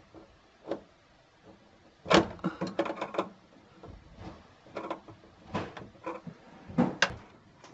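Scattered clicks, taps and knocks of hands working a compression nut and fitting on a humidifier's solenoid water valve and its plastic housing, the new water supply line being secured. There is a quick run of clicks about two to three seconds in and single knocks after that.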